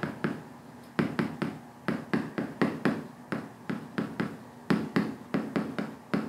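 Writing on a board: a quick, irregular run of taps and knocks, several a second, each with a short ring.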